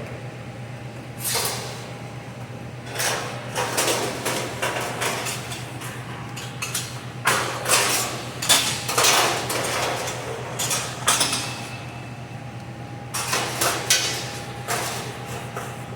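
Sheet metal scraping and clattering in irregular bursts of a second or two, as a hand drive machine works duct drive cleats. A steady low hum runs underneath.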